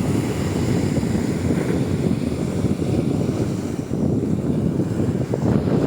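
Sea waves washing with wind buffeting the microphone: a steady, mostly low rushing noise.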